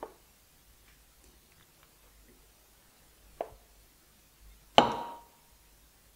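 Kitchenware knocking as soup is ladled out: a ladle clinking against the pot and bowl in a few separate knocks, the loudest about five seconds in, with a short ring after it.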